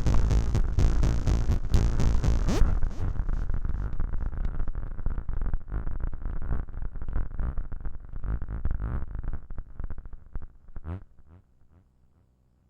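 Noise Toaster analog noise synthesizer run through a 1010music Lemondrop granular synth, playing dense, rapid pulsing noise. About two and a half seconds in the treble drops away, and the pulses then thin out and fade, with a few quick pitch sweeps near the end before the sound dies away.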